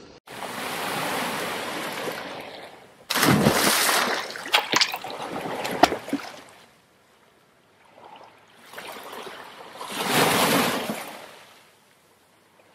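Water sound effects under an animated logo: a wash of surf fading over the first two seconds, a sudden splash about three seconds in followed by drips and trickling, then a second wave swelling and fading near the end.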